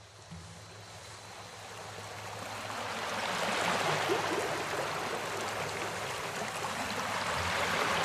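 Steady rush of flowing water, fading in over the first three or four seconds and then holding steady.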